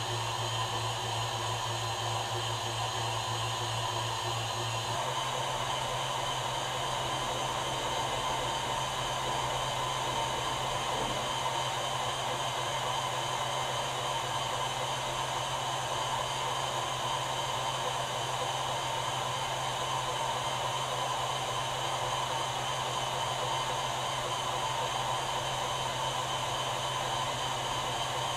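Wall-mounted window air conditioner running, a steady rush of blown air over a low motor hum. The hum changes to a slightly higher tone about five seconds in.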